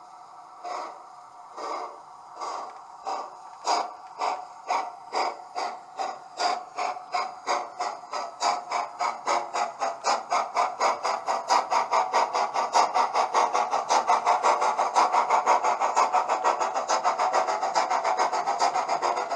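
Model railway DCC sound decoder playing steam locomotive exhaust chuffs as the locomotive pulls away: slow chuffs about a second apart that speed up steadily, running close together near the end.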